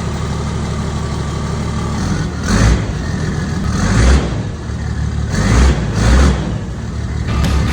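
Toyota 100 Series LandCruiser's turbo-diesel engine running through a newly fitted Torqit aftermarket exhaust, idling steadily and blipped up in revs four times.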